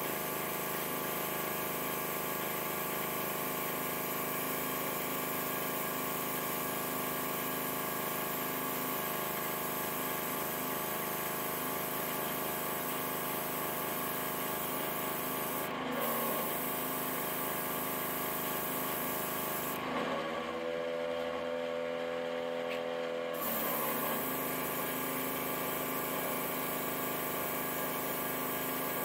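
Small airbrush compressor running with a steady hum, with the hiss of air and paint spraying from the airbrush. The hiss stops briefly about halfway through and again for a few seconds about two-thirds of the way through, while the compressor's note shifts.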